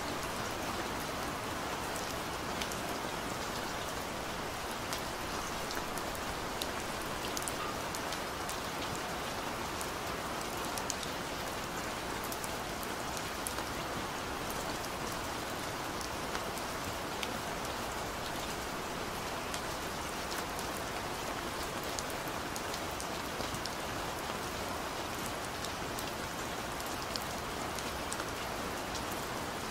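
Steady rain falling, an even hiss with many small scattered droplet ticks and no change throughout: the rain track that masks the quiet affirmations of a subliminal recording.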